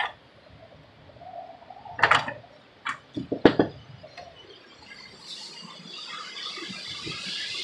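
A door being handled: a click, then a cluster of knocks and bangs about two to three and a half seconds in, followed by a hiss that builds steadily over the last couple of seconds.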